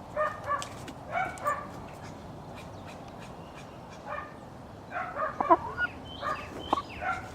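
Brahma chickens clucking in short repeated calls, in clusters near the start, about four seconds in, and through the last two and a half seconds, with one louder sharp call about five and a half seconds in.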